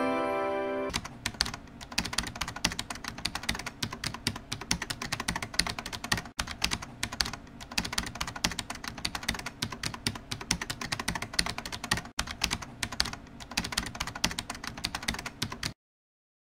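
Rapid keyboard typing clicks, a dense run of keystrokes that stops suddenly about a second before the end. The last notes of a chiming music jingle fade out in the first second.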